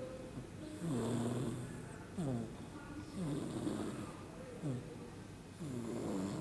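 Baby snoring in her sleep: a rhythmic, pitched snore that repeats about every second and a quarter, falling in pitch each time.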